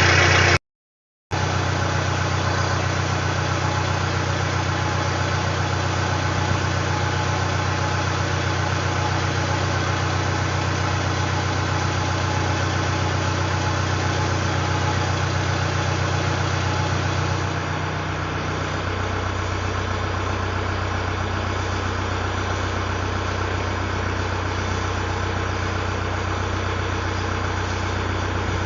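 Truck engine idling steadily, running after its belt tension was adjusted. About two-thirds of the way through the engine note drops to a lower, steadier idle.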